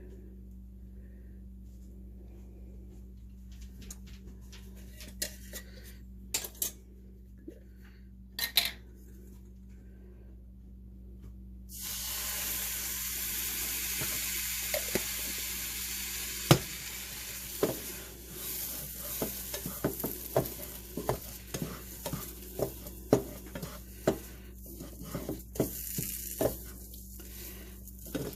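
A utensil stirring in a pan of turmeric paste on the stove, with scattered clicks against the pan; about twelve seconds in a sizzling hiss starts suddenly as more broth goes into the hot pan, and the stirring goes on over it with frequent clicks and scrapes.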